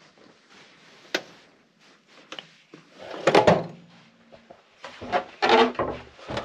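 Drawer of a steel tool chest being opened and rummaged in, metal tools clattering as a pair of mole grips is taken out. A sharp click about a second in, the loudest clatter around the middle, and more clattering near the end.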